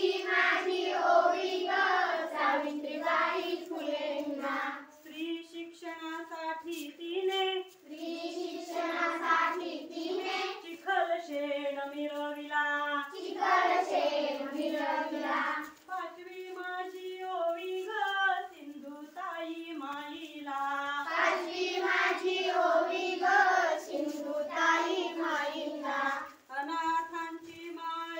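A group of children singing a song together in unison, phrase after phrase, with no instruments.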